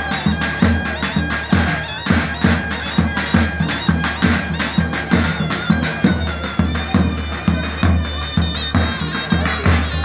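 Davul and zurna playing a folk dance tune: the shrill double-reed zurna holds a continuous melody over the steady beat of the large two-headed davul drum.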